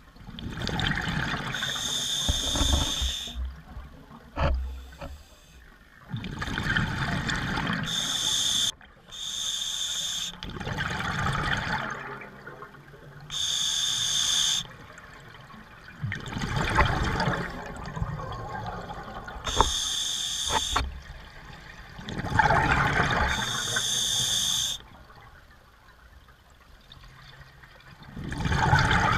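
A scuba diver's regulator breathing underwater: bubbling exhalations alternating with shorter hissing inhalations, one breath about every five or six seconds. A few light clicks come about four to five seconds in.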